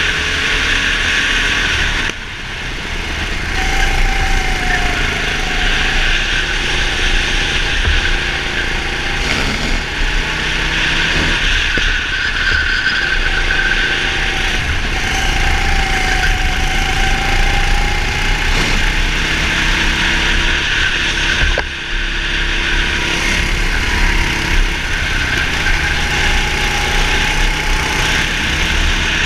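Go-kart engine running at racing speed under a steady rushing noise, its pitch rising and falling through the corners. It drops off briefly twice, about two seconds in and again about two-thirds of the way through, as the throttle is lifted.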